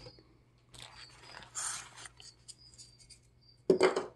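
Hands rummaging through packing inside a styrofoam-lined shipping box: soft scattered rustles of plastic and tissue paper with a few small ticks, and one louder short burst of handling noise near the end.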